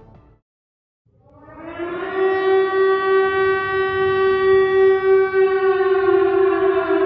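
Air-raid siren winding up from silence about a second in, rising to a steady wail, then beginning to fall in pitch near the end.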